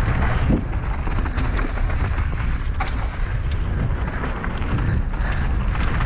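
Wind buffeting the microphone over the rolling noise of mountain bike tyres on a dry dirt and loose-stone trail during a fast descent. Many sharp clicks and ticks are scattered throughout.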